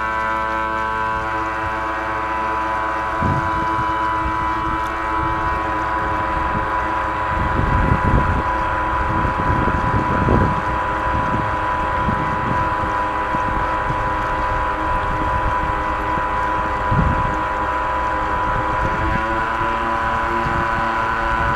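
Pro Boat Alpha radio-controlled jet boat under way: its drive gives a steady high whine, with a few dull knocks from the hull hitting small waves. The whine rises slightly in pitch near the end.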